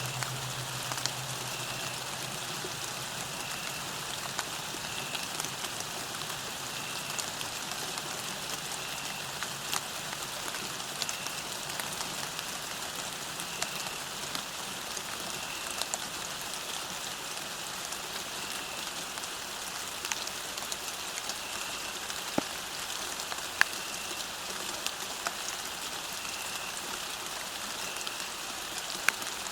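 Steady rain falling on a surface, an even hiss with many scattered drop ticks and a few sharper drips.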